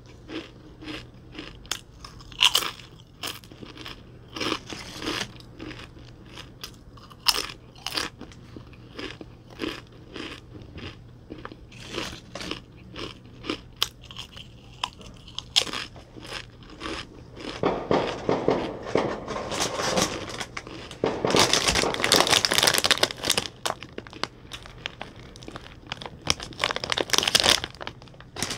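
Close-miked crunching of green tortilla chips: many short, sharp bites and chews through the first half, then a denser, louder run of crackling in the second half, with a plastic chip bag crinkled near the end.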